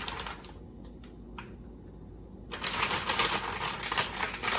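A plastic packet of frozen shredded coconut crackling and rustling as it is shaken out into a bowl. The rapid crackle stops about half a second in, leaving a few single clicks, and starts again densely about two and a half seconds in.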